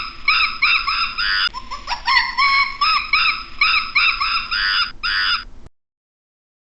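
A bird singing a quick phrase of high chirping notes, heard twice in a row, then cutting off abruptly near the end.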